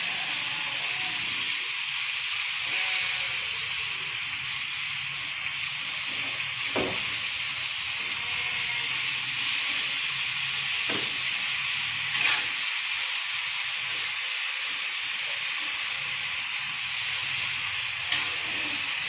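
Water spinach sizzling as it stir-fries in a wok over a gas flame, a steady hiss, with a few sharp clicks of the spatula against the wok.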